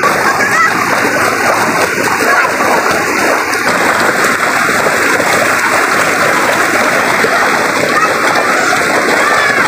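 Shallow rocky river rushing steadily over stones, with splashing from children wading and playing in the water.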